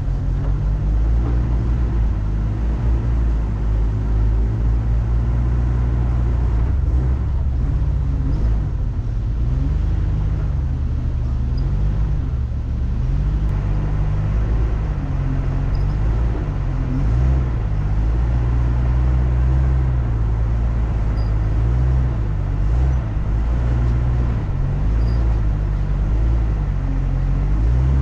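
A vehicle's engine running at low revs under steady load, its pitch rising and falling as the throttle changes, over continuous rumble and rattle from the vehicle.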